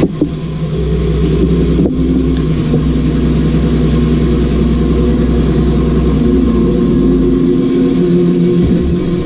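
Bandsaw running with no load after a cut, a steady low hum from the motor and the freely spinning blade. One short knock about two seconds in.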